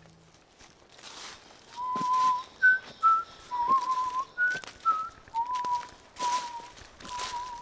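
A person whistling a slow, simple tune, with held low notes and shorter higher ones, starting about two seconds in. Footsteps rustle through dry fallen leaves about once a second.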